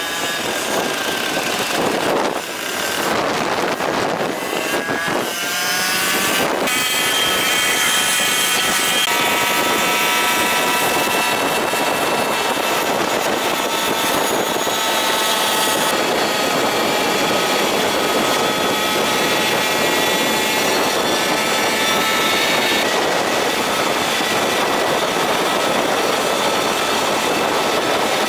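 Moped engines running on the road, with wind noise. The engine pitch climbs over the first few seconds, then holds steady at cruising speed.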